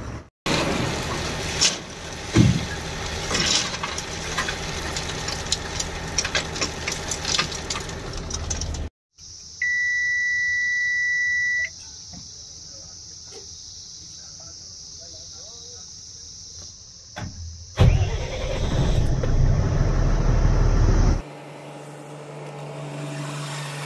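Truck and yard noise, then inside a truck cab a steady electronic beep for about two seconds as the ignition and dashboard come on. Later a diesel truck engine starts and runs loudly before settling to a steady low idle hum.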